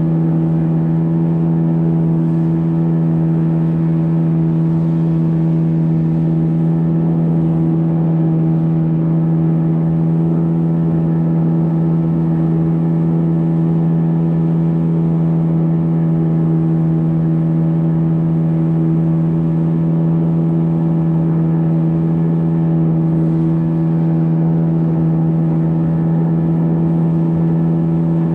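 An engine running at a steady, unchanging speed: a constant low hum with evenly spaced overtones.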